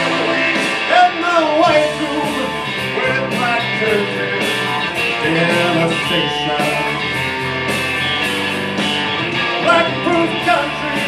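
Live rock music led by a Stratocaster-style electric guitar played through an amplifier, its notes bending and wavering in pitch.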